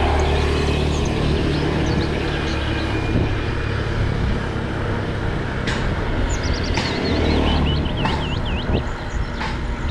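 Steady low road rumble of tyres and passing vehicles, with birds chirping high above it, busiest in the second half. A few sharp clicks sound near the middle and end.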